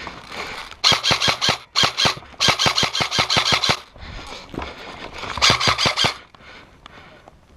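An M4-style airsoft electric gun, a G&G CM16 Raider L, firing on full auto in four bursts at about ten shots a second. The third burst is the longest, over a second.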